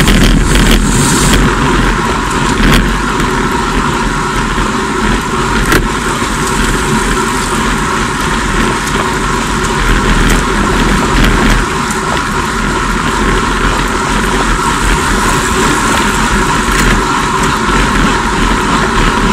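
Steady wind noise and tyre hum from a road bike riding at about 40 km/h, with the wind buffeting the bike camera's microphone in a constant rumble.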